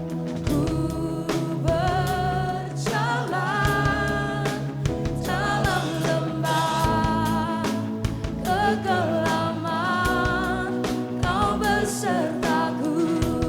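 Live worship band playing a Christian pop song: sustained chords and a steady drum beat under a wavering melodic lead line.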